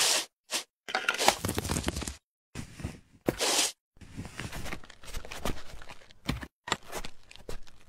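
A string of short crunching, tearing and crinkling sound effects, sharp and noisy, that cut in and out abruptly with brief silent gaps between them.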